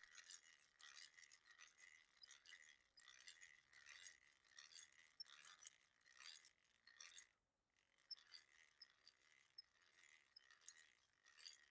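Near silence: a hand drill being cranked, its gears giving only a very faint, regular ticking about twice a second.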